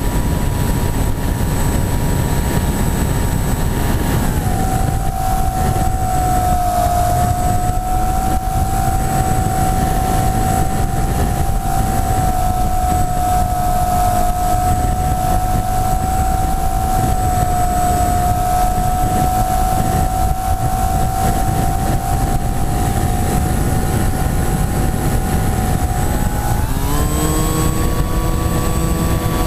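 Electric motor and propeller of an EPP foam flying wing in flight, heard from the onboard camera. Its whine drops in pitch a few seconds in as the throttle is eased back, holds steady, then rises again near the end as power is added. A heavy wind rush on the microphone runs underneath.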